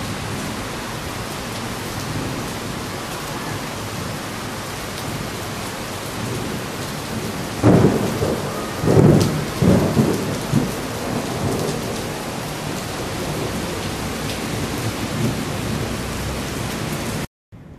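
Thunderstorm: steady rain hissing on the street, with a sudden thunderclap about eight seconds in. Two more loud rumbles follow over the next two seconds, then fade back into the rain. The sound cuts off suddenly near the end.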